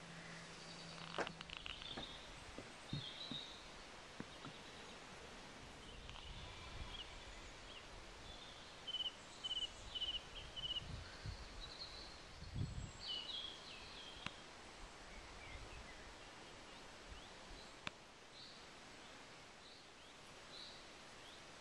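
Small birds chirping on and off, including a run of four quick repeated notes about nine seconds in, over faint countryside ambience with low rumbles coming and going in the middle.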